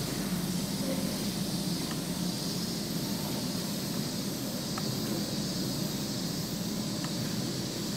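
Steady low hum with an even hiss and no distinct events.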